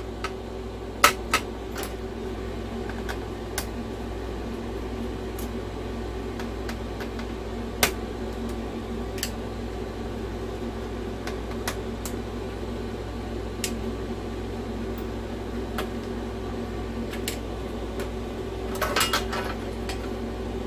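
Scattered light clicks and taps of small tools and parts being handled while a game console is taken apart, over a steady low hum. There is a small cluster of clicks near the end.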